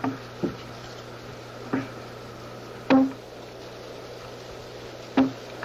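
Axe blows striking a spruce driftwood log as it is split: about five sharp knocks at uneven intervals, each with a short woody ring, over a steady low hum.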